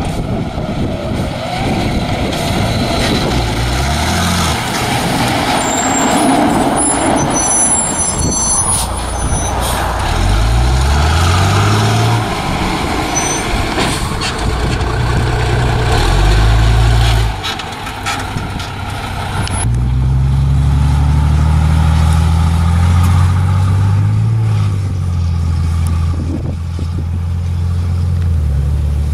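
Fire truck engine running under load and revving, its pitch climbing and then dropping several times as it shifts gears.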